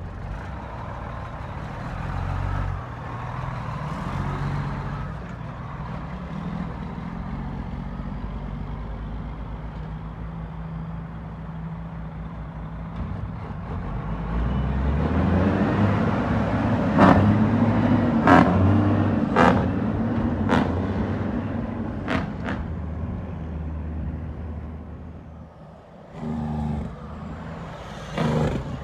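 Heavy diesel truck engine running at a steady idle, then louder, revving up and down, with several short sharp bursts over it about halfway through. Near the end a different truck engine is heard briefly.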